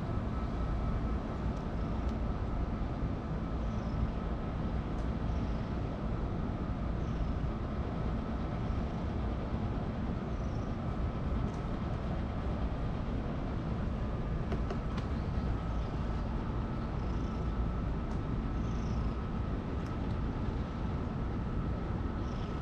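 Ginger stray cat purring steadily, a low fluttering rumble, while its head and cheek are stroked. Faint short high chirps come every second or two.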